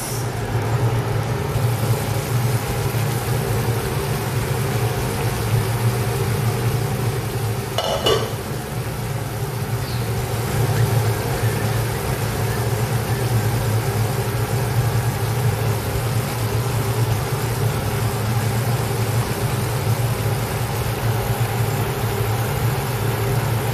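Kitchen exhaust fan running steadily, a low motor hum under a steady hiss. There is a brief clatter about eight seconds in.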